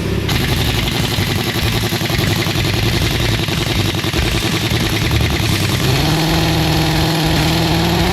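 Heavy-duty pneumatic impact wrench hammering continuously on a stubborn bolt, a rapid rattling blow after blow. About six seconds in, a steadier pitched whine joins the hammering.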